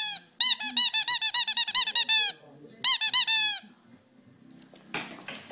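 Squeaky dog toy squeezed in quick runs of about six squeaks a second: a long run, a short pause, then a shorter run. A brief scuffling noise follows near the end.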